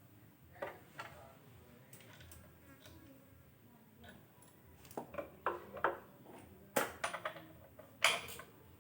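Metal clinks and knocks of tools and small engine parts being handled and set down, each with a brief ring: a couple early, a cluster about five seconds in, and two louder knocks near the end.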